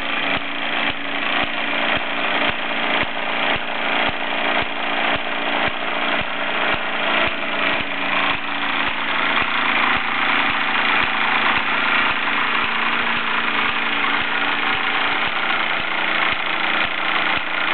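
Mamod toy live-steam engines driving a model workshop's line shafting and belt-driven machines, running steadily with a busy mechanical clatter and a regular run of sharp ticks.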